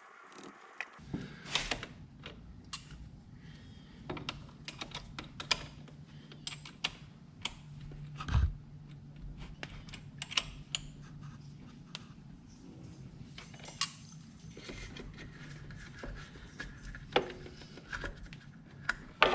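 Irregular clicks, taps and clinks of hand tools and metal hardware as a lawn tractor battery is set in place and its terminal bolts fastened, with one heavier knock partway through. A low steady hum runs underneath.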